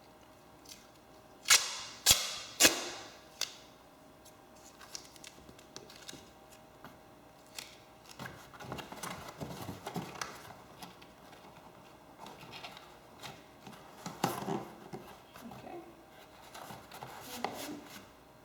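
Three sharp snaps about half a second apart, then scattered rustling and light clicks: hands handling and fixing material while closing off the underside of a recliner.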